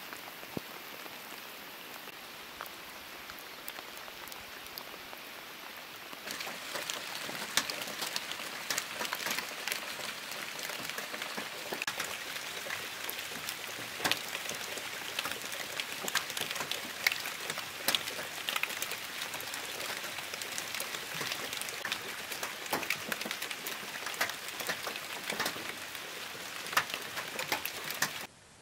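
Steady rain falling, with many sharp separate drop hits. About six seconds in it becomes louder and busier.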